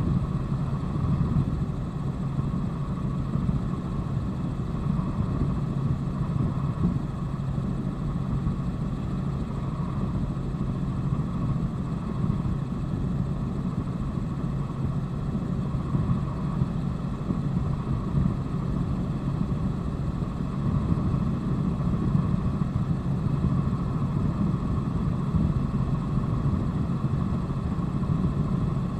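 Helicopter in flight heard from inside the cabin: a steady drone of engine and rotor with a constant hum and whine that do not change.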